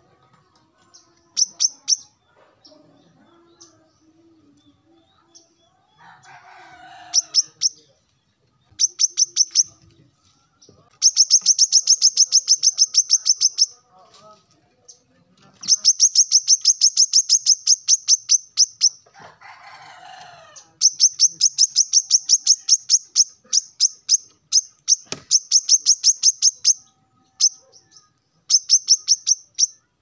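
Male brown-throated sunbird singing its territorial call to rivals: fast trains of sharp, very high chips, delivered in bursts of one to six seconds with short pauses between them.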